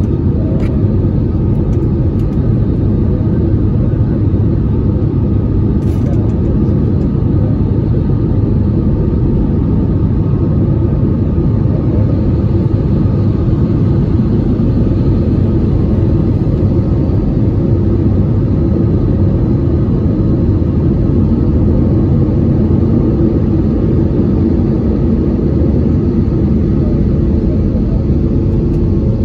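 Jet airliner engines at climb power, heard from inside the cabin over the wing: a loud, steady roar with a faint high whine above it.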